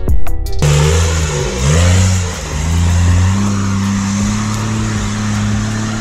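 Background music cuts off abruptly under a second in, giving way to a high-powered off-road 4x4's engine revving. The engine's pitch rises and falls a few times, then holds a steady, slowly climbing note.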